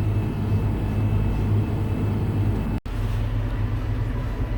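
Tractor engine running steadily with an even low hum, cut off for an instant about three seconds in before carrying on.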